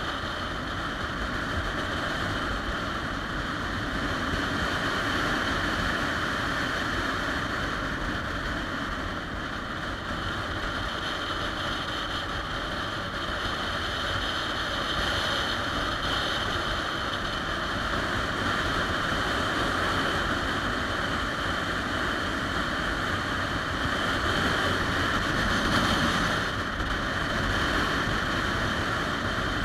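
Steady wind and road noise from a motorcycle cruising at speed, with the engine of a 2013 Triumph Rocket III Touring, a 2.3-litre three-cylinder, running underneath.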